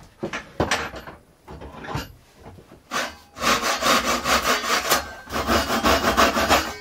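Handsaw cutting through an ash board along a marked line: a few short starting strokes, then steady, even full strokes from about halfway in.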